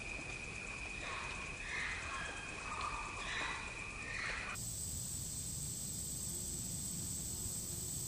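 Woodland ambience: a steady high insect drone with a run of short bird calls from about a second in. A little past halfway it cuts abruptly to a different ambience, a higher steady whine with hiss.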